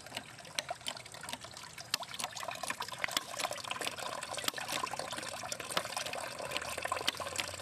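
Freshly pressed cider juice pouring in a steady stream from a cider press into a metal stockpot, a continuous splashing trickle with many small ticks.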